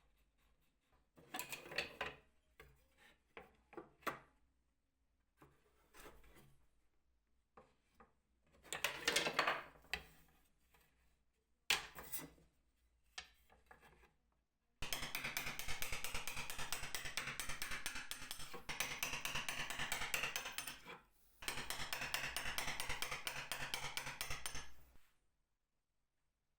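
Hand work on wood: scattered knocks and short rubbing strokes, then about ten seconds of steady abrasive rubbing on the wood, broken once briefly, that stops suddenly near the end.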